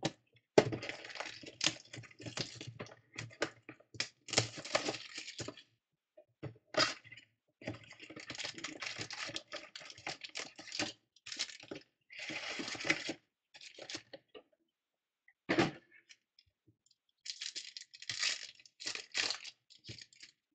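A cardboard box of 2014 Panini Elite football card packs being opened and its wrapped packs pulled out and stacked on a table. The sound is irregular crinkling, rustling and tearing of cardboard and pack wrappers, with sharp clicks, and one solid knock about two-thirds of the way through.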